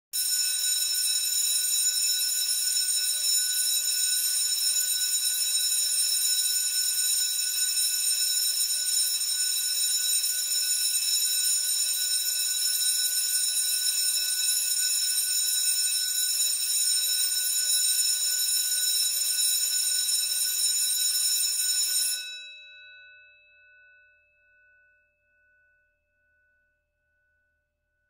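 Electric school bell ringing continuously and loudly. After about twenty-two seconds it cuts off suddenly, and the bell's gong hums on, fading out in slow pulses over a few seconds.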